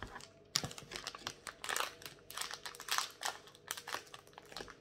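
Plastic wrapper on a pack of peanut soft candy crinkling and crackling as it is handled and cut with scissors, an irregular run of sharp crackles and clicks starting about half a second in.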